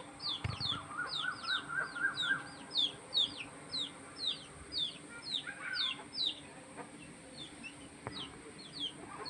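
Chicks peeping over and over, short falling peeps about two to three a second, growing weaker near the end, with a quicker run of lower calls from the hen in the first two seconds.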